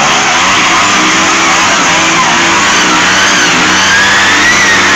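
Four-wheeler ATV engine revving hard as its tyres spin through a mud hole, flinging mud and water, with a steady hiss of spray over the engine note. The engine whine climbs near the end.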